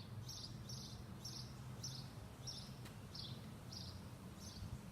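Faint bird chirping, short high chirps repeated about twice a second, over a low steady hum.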